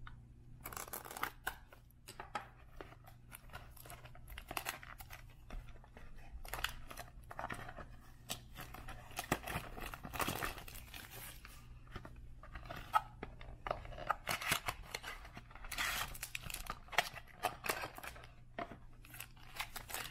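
Trading card pack being opened by hand: irregular tearing, crinkling and rustling of the wrapper, with scattered clicks and scrapes of handling.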